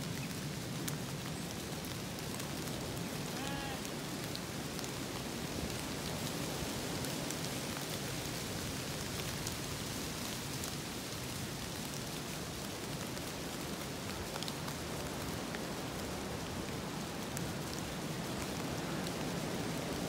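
Many sheep hooves rustling and crunching steadily through a thick layer of dry fallen leaves, with scattered small crackles.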